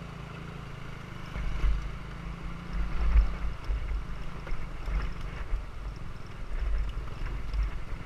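Small motorbike engine running as the bike rides off along a dirt track, with wind buffeting the helmet-mounted microphone in irregular gusts from about a second and a half in.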